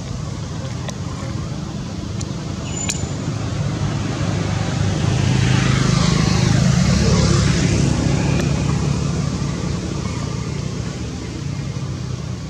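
A road vehicle passes by, swelling to its loudest about halfway through and then fading, over a steady low traffic rumble.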